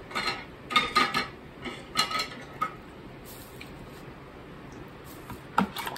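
Kitchen dishes and utensils clinking: a quick run of light clinks and taps over the first few seconds, then a pause and one more clink near the end.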